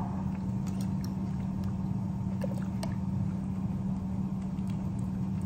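A steady low machine hum, with a few faint light clicks of a metal fork against a glass jar.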